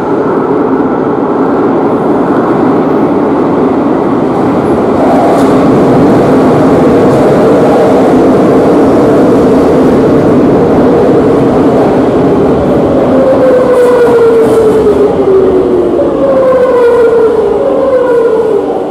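Metro de Madrid series 8400 train running into the station along the platform: a loud, steady rumble of wheels on rail, then from about two-thirds of the way through a falling whine as it brakes. The train slows to a stop near the end.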